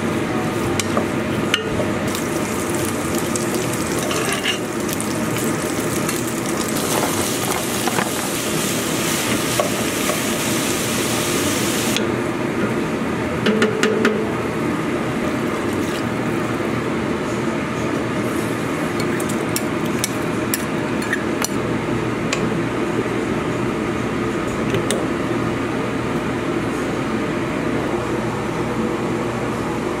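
Diced beef sizzling in a pot while it is stirred and scraped with a wooden utensil, over a steady hum. The sizzle drops off sharply about twelve seconds in, after which a spatula clicks and scrapes against the pot as a tomato mixture is stirred in.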